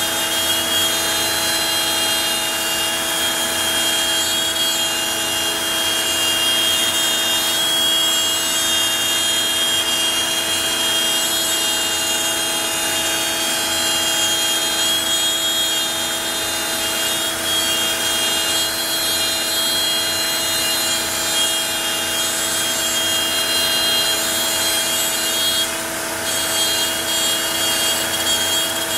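Onefinity CNC router cutting out shapes: the router spindle's steady whine mixed with the rasp of the bit in the stock, running evenly with a brief dip in loudness about 26 seconds in.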